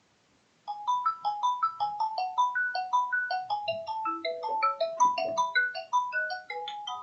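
Phone ringtone for an incoming call: a fast tune of short notes, several a second, that starts under a second in and keeps ringing.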